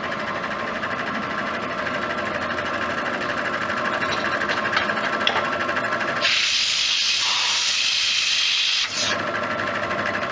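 Bridgeport milling machine running steadily as it mills bushing holes in a pedal lever, with a few light ticks. About six seconds in, a loud hiss starts, holds for about three seconds and cuts off suddenly.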